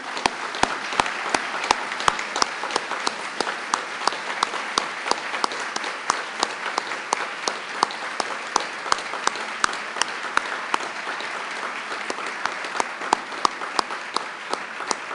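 Audience applauding steadily: many hands clapping, with a few sharper, nearer claps standing out.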